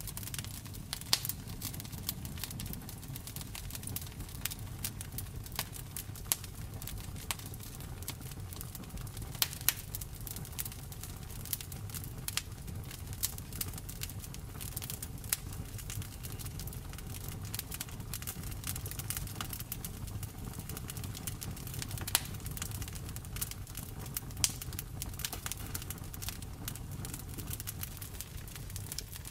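Campfire crackling: irregular sharp pops and snaps of burning wood over a low steady rumble, a few pops louder than the rest.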